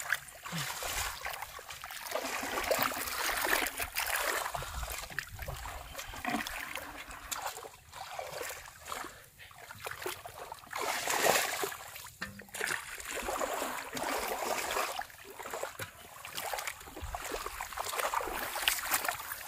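Shallow paddy-field water sloshing and splashing as hands grope through the mud and rice seedlings, in irregular surges that rise and fall.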